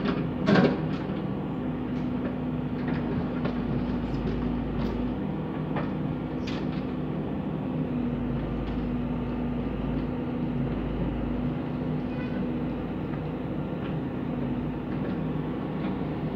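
Caterpillar 422F backhoe loader's diesel engine running steadily while the backhoe digs into rubble. A loud knock about half a second in and a few lighter knocks later from the bucket and stones.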